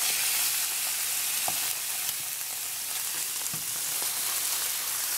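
Pork chops sizzling in hot oil in a frying pan as they are turned over with tongs: a steady spattering hiss with a couple of faint clicks.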